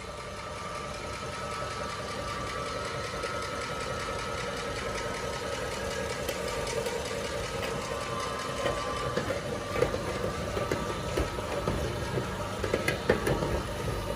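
Electric meat grinder running steadily as polymer clay is forced through it. From about eight seconds in, irregular clicking knocks join the motor hum.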